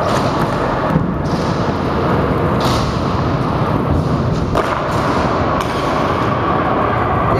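Stunt scooter wheels rolling over a smooth concrete floor in a steady rumble, with a few sharp knocks about a second in and again at about four and a half and five and a half seconds.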